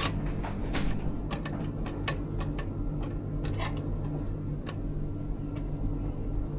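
Irregular sharp clicks and light taps, a few per second at uneven spacing, over a steady low electrical hum.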